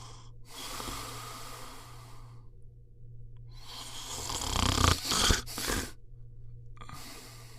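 A person snoring: long, noisy breaths about every three seconds, the middle one loudest and roughest.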